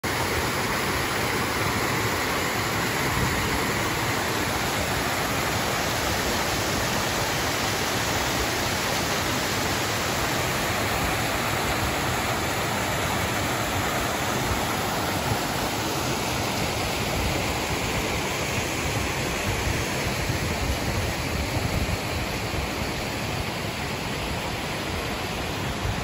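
Mountain stream pouring over a series of small rock ledges in cascades: a steady rush of falling water.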